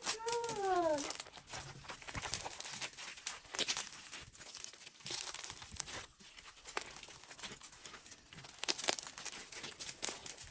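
Slime being kneaded and squished by hand, a dense sticky crackling and popping. A short falling vocal sound comes in the first second.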